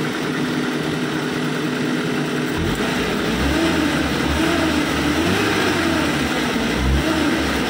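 Suzuki Carry Futura's four-cylinder petrol engine idling, then revved by hand at the throttle from about two and a half seconds in, rising and falling several times. The engine is freshly tuned up and runs nicely.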